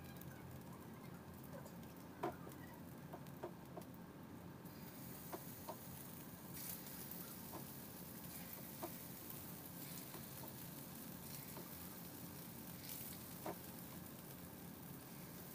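Faint steady sizzle and hiss of food cooking in a pot on a gas burner. The hiss grows brighter about a third of the way in, and a few short sharp sounds are scattered through.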